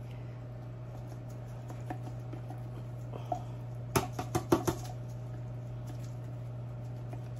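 A grated-Parmesan shaker can with a plastic lid being shaken and knocked over a baking pan: a quick run of about five sharp clicks a little past the middle, with fainter scratchy shaking around it, over a steady low hum.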